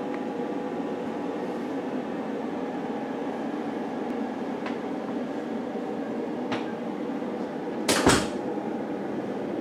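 Steady room hum with a few faint clicks, then a sharp double knock about eight seconds in.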